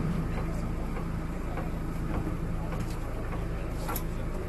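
Resort boat's engine idling steadily at the dock, a low even hum, with a few faint knocks near the end.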